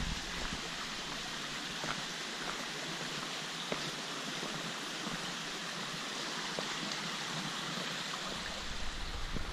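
Shallow woodland creek running over rocks, a steady rush of water. A low rumble comes in near the end.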